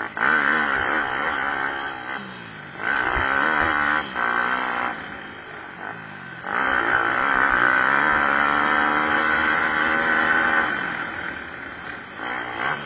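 Racing pit bike engines revving, the pitch repeatedly climbing and dropping under throttle and gear changes, with more than one bike heard at once. They fade a little just before the middle, then come back louder for several seconds.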